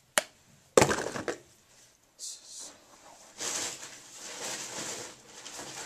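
A sharp click, then a loud crackling rustle lasting about half a second, followed by a brief hiss and a longer, softer rustling about three seconds in.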